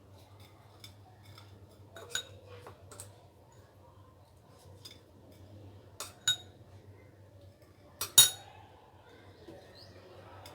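Metal kitchen utensils clinking and knocking against dishes, about six sharp strikes with a brief ring, the loudest pair a little after the eight-second mark.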